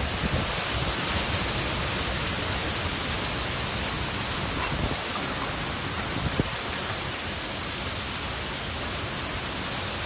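Heavy wind-driven rain in a severe storm, a steady dense rush of noise that holds even throughout.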